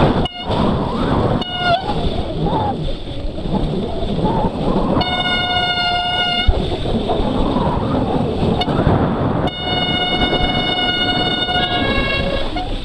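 Mountain bike disc brakes squealing under braking in mud. Two long steady high squeals, the second one longer, come over constant rough riding noise. Shorter squeals fall in pitch near the start, and another steps down near the end.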